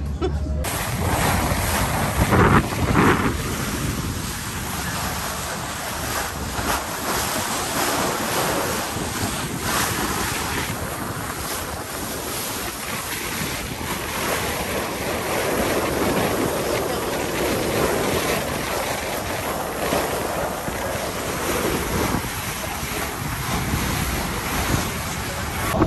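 Steady wind rushing over the microphone aboard a moving boat, with the wash of water under it.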